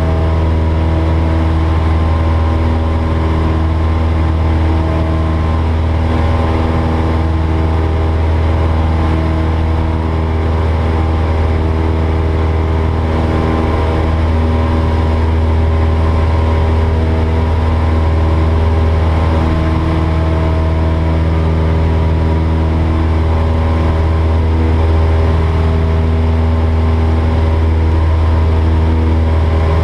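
Single-engine light aircraft's piston engine and propeller running steadily in flight, a constant low drone heard from inside the cockpit.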